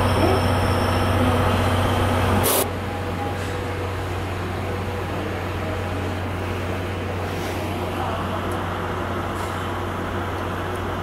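Steady low hum and rumble of trains standing in a station yard, dropping suddenly about two and a half seconds in to a quieter, even rumble.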